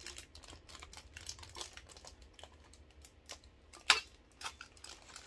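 Light clicks and rustles of a small metal heart-shaped springform ramekin being handled, with one sharp click about four seconds in.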